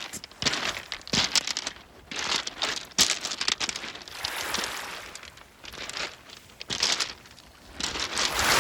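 Beach pebbles crunching and clattering against each other in repeated bouts of about a second, each full of small sharp clicks.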